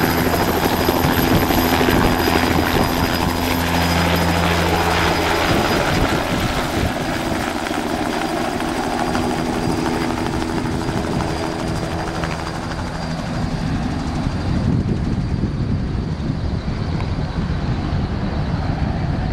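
Bell 206 JetRanger helicopter taking off and flying away: the main-rotor chop and the high whine of its Allison 250 turbine are strong at first, then fade steadily as it climbs off into the distance.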